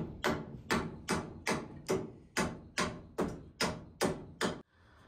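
A hammer driving a nail into a wooden wall-framing board: about a dozen steady blows, roughly two and a half a second, that stop abruptly near the end.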